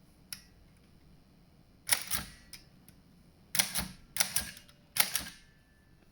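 Thürey type-cylinder typewriter (about 1909) being typed on slowly. Four sharp, unevenly spaced strikes print letters onto the paper, each with a brief ringing tail, and there are lighter clicks from the mechanism before them.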